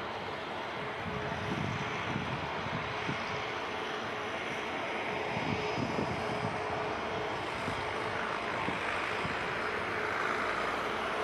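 CFM LEAP-1A turbofans of an Airbus A320neo running steadily at taxi power, a continuous jet rush with a held tone and a faint high whine. Irregular low buffeting of wind on the microphone runs under it.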